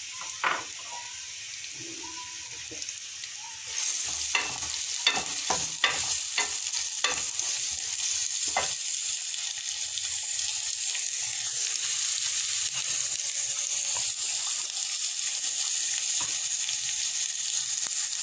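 Freshly added sliced onions sizzling in hot oil in a steel pan. About four seconds in the sizzle grows louder as a wooden spatula starts stirring them, knocking and scraping against the pan, with the knocks thinning out later.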